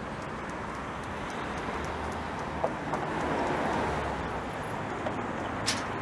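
Steady city street traffic at a busy intersection, with cars running past. The noise swells for a moment in the middle as a vehicle goes by, and there is a brief sharp click near the end.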